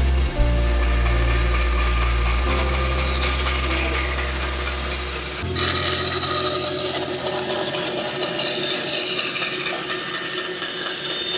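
Woodworking band saw ripping a pine board lengthwise, the blade cutting steadily through the wood. A low hum underneath stops suddenly about five and a half seconds in, and the cutting sound carries on.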